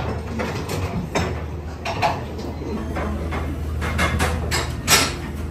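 A string of sharp, irregular clicks and knocks over a steady low hum, the loudest knock near the end.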